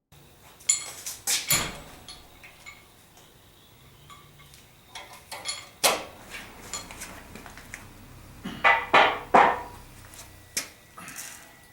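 Metal parts of a cast-iron blacksmith leg vise clanking and knocking as they are handled and set down, a string of sharp metallic knocks, some with a short ring, loudest about a second and a half in and again near the end.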